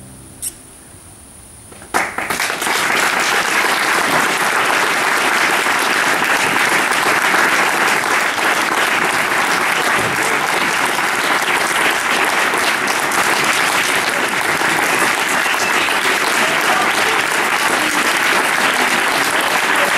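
Audience applause breaking out after a short hush about two seconds in, then continuing steadily.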